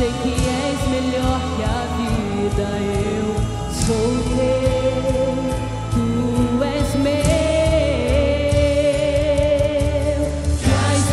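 Woman singing a gospel worship song over instrumental backing, holding long notes with vibrato.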